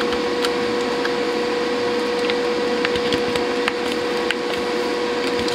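Light plastic clicks and taps as control knobs are fitted onto a DAB radio's front panel, over a steady background hum with a constant whine.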